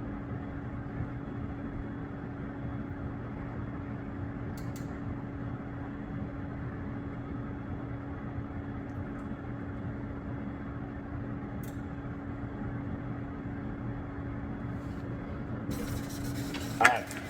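Steady machine hum with a low droning tone, like running ventilation or equipment, with a few faint isolated clicks. A short, louder sharp sound comes about a second before the end.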